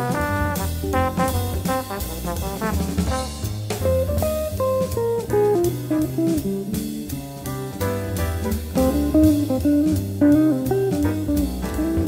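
Jazz recording: a trombone-section chord ends at the start, then a guitar plays a single-line melody over bass and drum kit.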